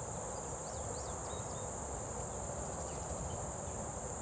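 A steady, high-pitched insect trill, with a few short bird chirps in the first second and a half and a low rumble of wind underneath.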